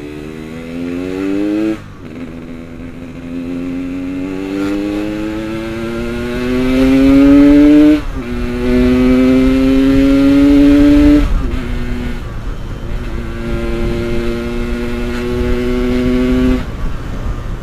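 Yamaha RX-King's two-stroke single-cylinder engine accelerating on the road. Its pitch climbs steadily, drops sharply at each of about four gear changes, then climbs again.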